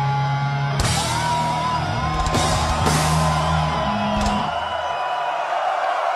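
A live heavy metal band hammering out the song's final chords: held guitar and bass notes with a run of crash-cymbal hits. The band stops about five seconds in, leaving a crowd cheering and whooping.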